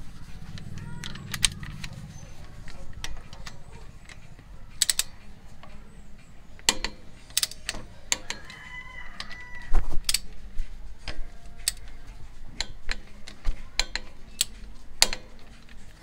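Socket ratchet clicking in short runs as it turns the bolts of a brake caliper, with sharp metallic clicks throughout. A rooster crows in the background about halfway through.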